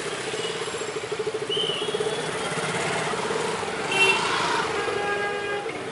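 Street traffic, with a motorcycle engine running as it passes close by, its pulsing note fading after about two and a half seconds. A short horn toot comes about four seconds in.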